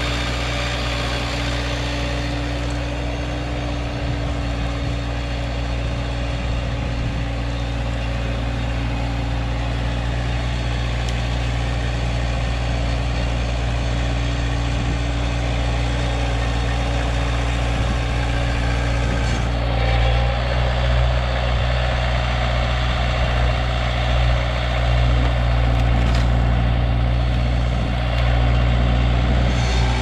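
Vermeer S725TX tracked mini skid steer's engine running steadily, getting somewhat louder in the last third.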